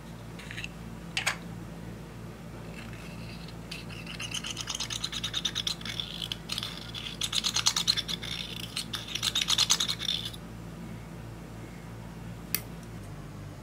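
Pressed eyeshadow being scraped and crumbled out of its pot with a small metal spatula: fast, gritty scratching made of many short strokes, in runs from about four to ten seconds in. A couple of light clicks come before it and one more near the end.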